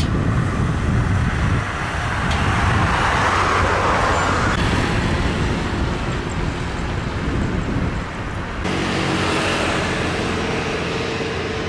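Steady loud rumble of vehicle engines and traffic. About nine seconds in, a steady engine hum of several tones joins it.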